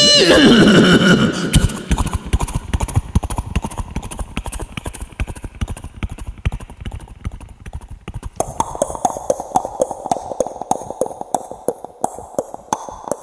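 A human mimic imitating a horse with his mouth: the tail of a falling whinny, then a long run of rapid galloping clip-clop hoofbeat clicks, their tone turning hollower about eight seconds in.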